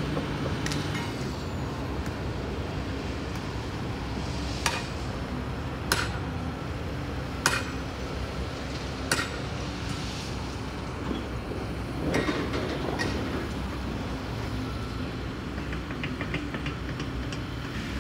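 Diesel excavator engine running steadily while railroad track is lifted out. Sharp metal-on-metal clanks ring out over the engine, five or six of them about a second and a half apart in the first half, then a rougher scraping clatter a little past the middle.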